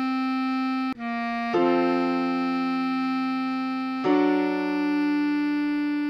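Bass clarinet playing a slow melody line over piano chords: a held note, a short lower note about a second in, a long note back up, and a step higher near the end.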